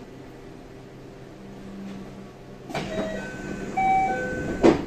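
JR West 323 series train standing at a station with its doors closing. A hiss of air comes about two and a half seconds in, then a chime of short electronic tones at a few different pitches, then a loud thud near the end as the doors shut.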